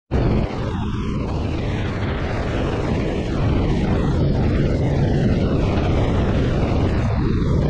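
Twin engines of a Sea Ray 400 Sundancer cruiser running steadily at speed, a constant drone mixed with the rushing hiss of water spraying off the hull.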